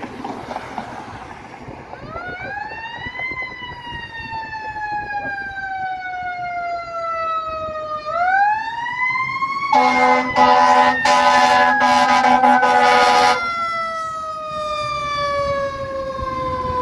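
Fire engine siren winding up quickly and then slowly falling in pitch, twice, in the way of a mechanical wind-up siren. In the middle the truck's air horn sounds for about four seconds and is the loudest part, with the siren still winding down under it.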